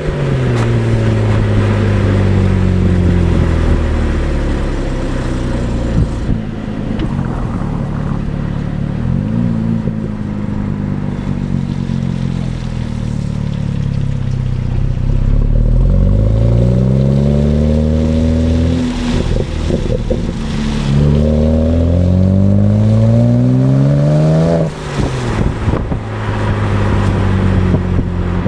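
Exhaust of a stock 2008 BMW 335i's twin-turbo 3.0-litre straight-six under way. The revs fall slowly over the first few seconds, then climb hard three times with a sudden drop between each climb as it shifts up through the gears. A few sharp exhaust crackles follow the last lift-off.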